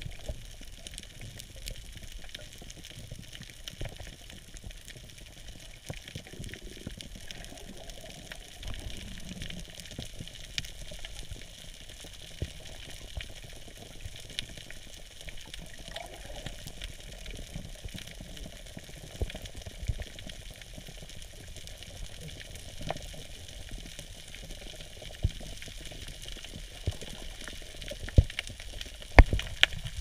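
Underwater reef ambience: a steady crackling like frying, the snapping of snapping shrimp, with scattered sharper clicks and a few louder knocks, most of them near the end.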